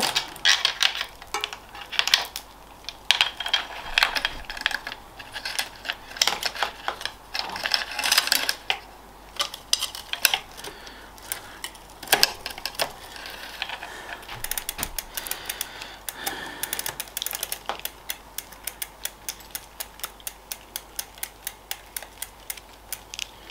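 A new bicycle chain being handled and threaded onto the bike's drivetrain: irregular metallic clicks and rattles of the links, then for the last several seconds a steady ticking, about three ticks a second, as the chain is fed round.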